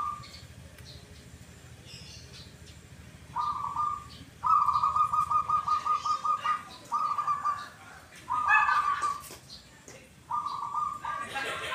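Zebra dove (perkutut) singing its cooing manggung song: a short phrase, then a long fast rattling run of notes about four seconds in, followed by several shorter 'kuk' phrases, all at about the same pitch.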